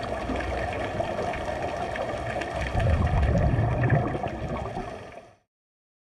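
Underwater recording of scuba divers: a muffled rushing and gurgling of exhaled regulator bubbles, with a heavier low rumble from about three seconds in that lasts a second or so. It fades and cuts off to silence just past five seconds.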